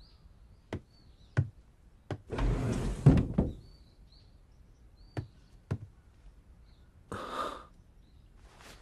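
Sliding door run along its track for about a second, ending in a knock as it shuts, among slow single footsteps on a wooden floor. Faint chirping in the background.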